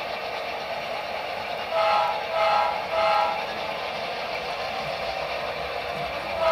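HO-scale model diesel locomotive's sound decoder: a steady running hum under three short horn toots in a row, with a fourth toot starting just at the end.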